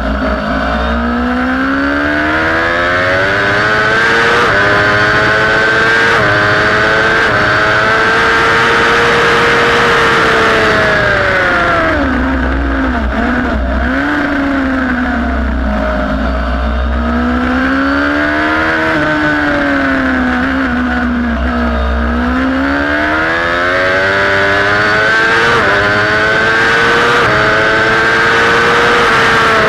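Sport motorcycle engine at racing speed on a track lap, with wind rushing past: the revs climb and break off in quick upshifts, fall away twice under braking and downshifts, about twelve and twenty seconds in, then climb hard again through the gears.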